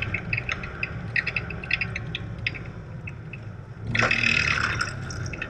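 Inside a car: steady low engine and tyre noise with light ticks and rattles, then about four seconds in a louder, noisier rumble lasting about a second as the tyres run over a cattle grid.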